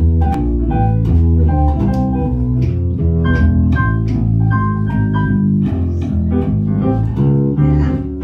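Small jazz band playing: a flute melody over double bass, acoustic guitar and drums.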